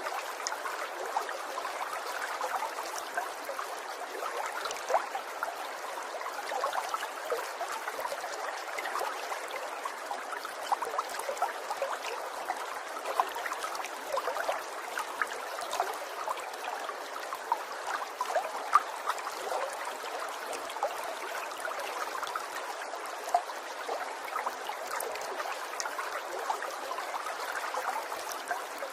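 Small stream of water trickling steadily, with frequent little splashes and drips over a continuous gentle babble.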